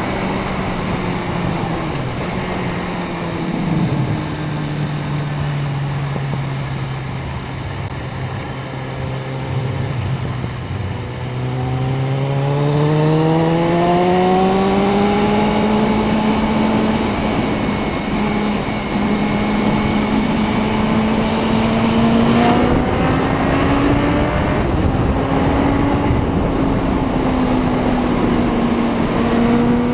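Suzuki Bandit 650N's inline-four engine running on the move, over a steady rush of wind noise. The revs sit lower for several seconds, then climb from about eleven seconds in and hold higher, with small rises and falls.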